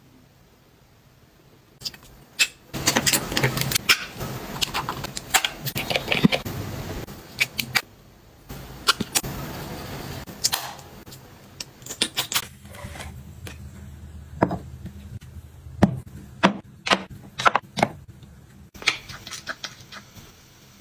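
Close-up handling sounds of cosmetic packaging, including a compact case: a string of sharp clicks and taps with rustling, starting about two seconds in, dense for several seconds and then more spaced out.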